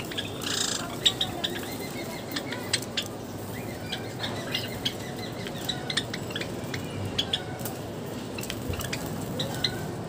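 Java sparrows giving many short, high chirps and small clicks, scattered irregularly over a steady low background noise.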